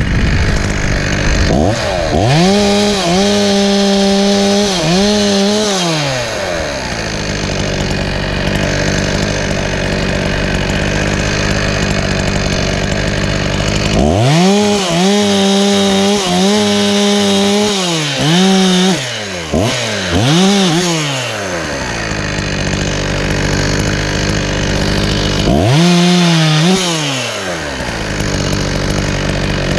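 Petrol chainsaw cutting wood: it revs up to full throttle, holds there for a few seconds and drops back to idle, four times, with a fifth rev starting near the end.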